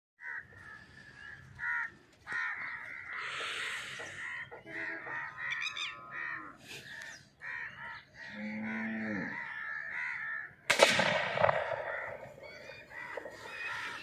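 A single shotgun shot about ten and a half seconds in, the loudest sound, trailing off into its echo. Birds call repeatedly before and around it.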